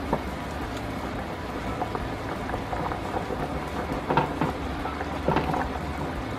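A plastic spoon stirring vinegar-soaked sliced red onions in a bowl: scattered small wet clicks, with two louder ones about four and five seconds in, over a steady hiss.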